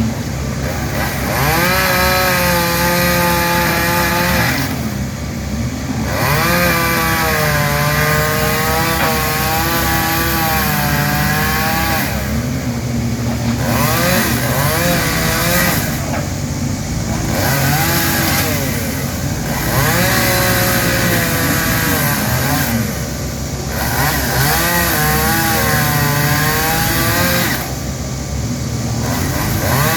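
Two-stroke chainsaw cutting through tree branches, revving high under load and wavering in pitch, easing off briefly about five times between cuts. A lower engine runs steadily underneath.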